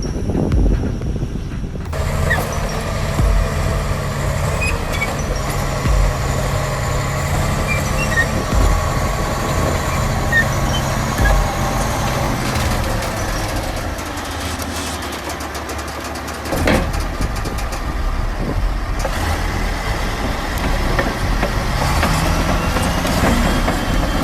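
Diesel engine of heavy earthmoving equipment running steadily under load, with dull low thumps every couple of seconds and one sharper knock near the middle.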